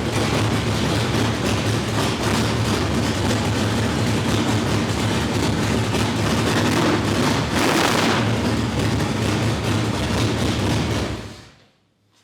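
A 1972 Dodge Challenger's 440 big-block V8, exhausting through headers, running steadily just after a cold start. It stops about a second before the end.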